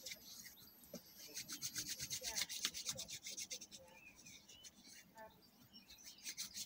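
Hands rubbing together to work in hand sanitiser: soft, quick, dry rubbing strokes that ease off about four seconds in and pick up again near the end.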